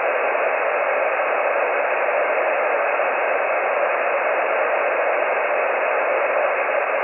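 Steady hiss of atmospheric band noise from an HF amateur radio transceiver's speaker, tuned to a single-sideband voice frequency on the 20-metre band with no station transmitting. The hiss is thin and telephone-like, cut off above and below the voice range by the receiver's filter.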